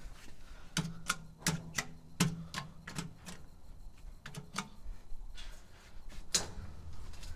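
Irregular sharp knocks on the steel structure of a bucket-wheel excavator, about a dozen in the first five seconds and one more near the end. Several are followed by a brief low metallic ring.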